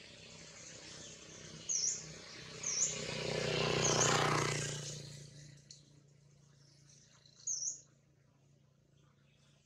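Short, high bird chirps, four in all: three over the first four seconds and one more near the end. A broad rushing noise swells up and fades away between about three and five seconds in.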